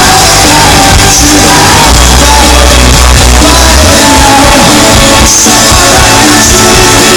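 Rock band playing live with singing, very loud.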